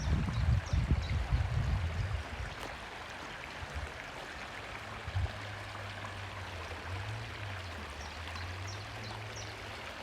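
Shallow stream flowing, a steady rushing and gurgling of water, with low rumbling in the first couple of seconds and a few faint high chirps.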